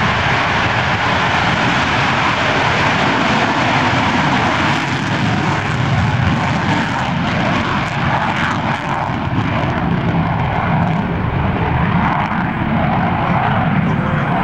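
Jet engine of an F-16D Fighting Falcon at takeoff power: a loud, steady rush of jet noise as the fighter rolls down the runway, lifts off and pulls up into a steep climb. The high hiss fades from about eight seconds in as the jet climbs away.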